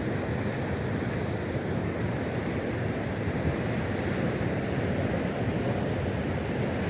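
Steady rush of sea surf mixed with wind buffeting the microphone, heaviest in the low rumble and without any single distinct break or event.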